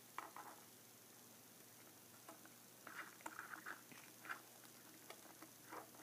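Faint scattered clicks and taps of a cockatiel's beak pecking and nibbling at small plastic toys, with a quick cluster of them around the middle.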